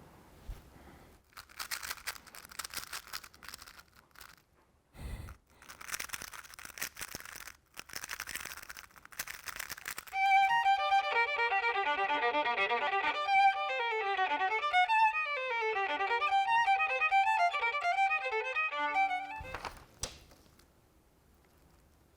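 Rapid clicking and rattling in three bursts, the sound of a speed cube being turned fast. About ten seconds in, a solo violin starts playing a quick melody, the loudest sound, and stops near twenty seconds.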